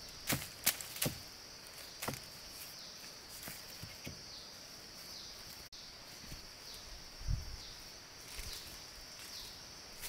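Forest ambience: a steady high-pitched insect drone that dips in pitch briefly every second or so, with several sharp knocks and clicks in the first two seconds and a dull thump about seven seconds in.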